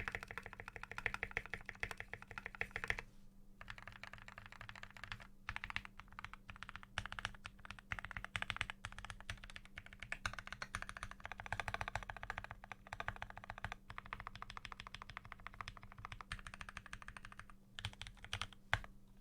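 Continuous fast typing on a custom 60% mechanical keyboard with lubed and filmed Durock T1 tactile switches on an aluminium plate in a walnut wooden case: dense runs of keystrokes broken by a few brief pauses, stopping just before the end.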